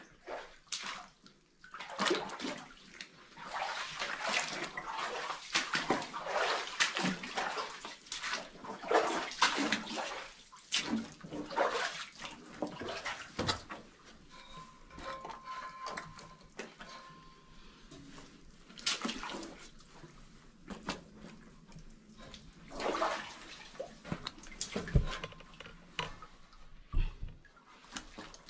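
Someone wading through shallow water in a mine tunnel: irregular sloshing and splashing steps, busiest in the first half and more scattered later, with two dull thuds near the end.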